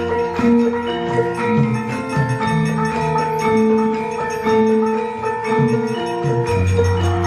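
Javanese gamelan music: bronze metallophones play a melody of ringing, overlapping notes, and a deep low tone comes in near the end.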